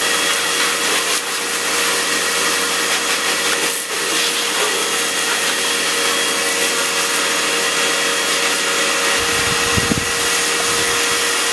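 Karcher electric pressure washer running, a steady motor and pump hum under the loud hiss of a water jet. The jet comes from a homemade 2.5 mm bolt nozzle screwed into the hose in place of the broken gun, and it is spraying onto a dirt bike. A few low knocks come near the end.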